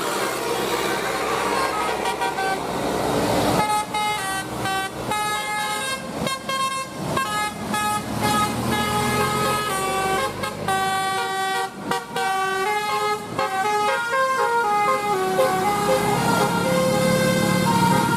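Indonesian bus 'telolet' multi-tone air horn playing a melody of held notes that step up and down in pitch. It starts about four seconds in, after a few seconds of vehicle noise, and stops shortly before the end.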